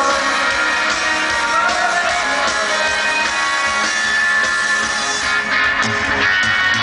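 Live rock band playing loudly, with strummed electric guitar and drums, heard from among the arena audience.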